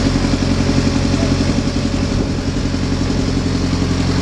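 A river slow boat's engine running steadily at an even pitch, with water rushing past the hull.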